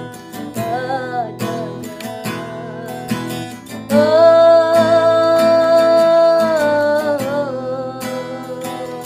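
Acoustic guitar strumming under a singer who finishes a sung line in Malay about a second in. A long held note follows, lasting about three seconds.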